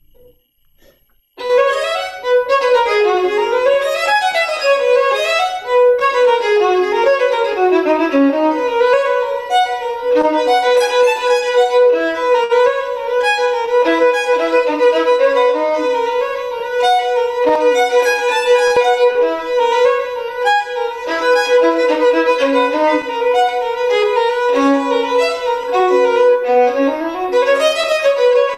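Solo violin played with the bow, starting about a second and a half in: fast running notes in rising and falling patterns, with one note repeated over a moving lower line through the middle.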